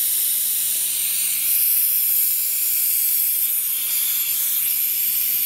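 Compressed air hissing steadily out of a Rolair JC10 air compressor after the motor has stopped. It is a leak that the owner traces to the brand-new solenoid unloader valve, which is not sealing.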